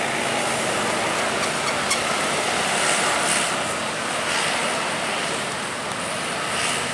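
Steady rushing noise of passing road traffic, tyres and engines going by on the road, with no horn sounding.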